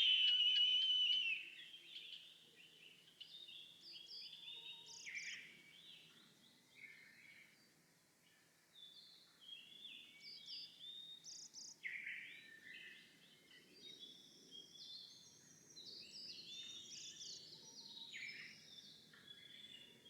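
An eastern buzzard gives one drawn-out, slightly wavering call of about a second and a half right at the start, the loudest sound here. Through the rest, many small songbirds sing short, high notes in a busy morning chorus.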